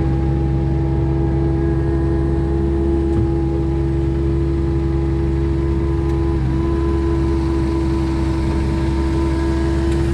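Tractor engine running steadily under load, a constant droning hum, with a slight change in tone about six seconds in.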